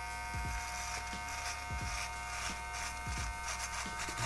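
Brio Beardscape cordless beard trimmer running with a steady buzz as it cuts close at its zero setting along the cheek and sideburn.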